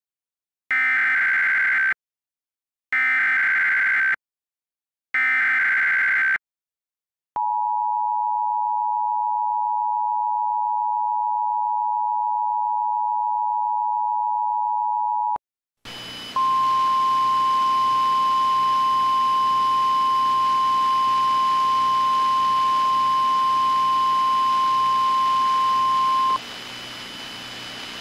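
Emergency Alert System broadcast tones: three short bursts of digital header data, then the two-tone attention signal held steady for about eight seconds. After a brief gap a steady hiss comes in, and a single-pitch alert tone sounds over it for about ten seconds before cutting off, leaving only the hiss.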